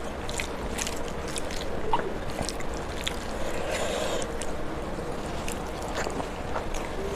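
Fingers squishing and kneading rice mixed with sour mango dal on a steel plate, making many small wet clicks and smacks, with a softer squelching swell about halfway through. Near the end a handful goes into the mouth.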